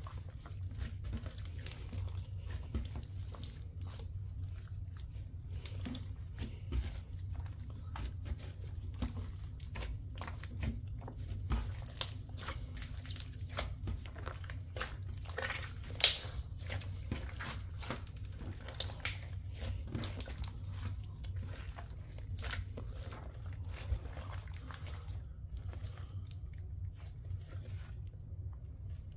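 Thick mixed slime with small foam beads in it, kneaded and stretched by hand: a steady run of small wet clicks, pops and crackles, with one louder snap about sixteen seconds in, over a steady low hum.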